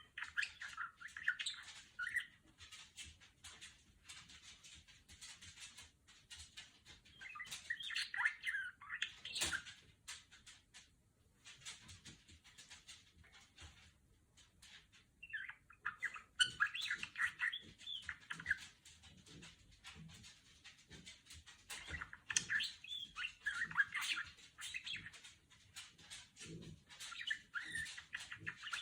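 Budgerigar chattering: spells of rapid warbles, chirps and clicks with short pauses between them, a beeping chatter likened to R2-D2.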